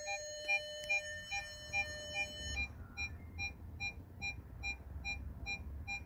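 Electrical interference noise from a car radio head unit through the car speakers: a pulsed tone repeating a little over twice a second, over a low hum, with a steady high whine that cuts off about two and a half seconds in. The noise persists even with a ground loop isolator on the unit's main power wire.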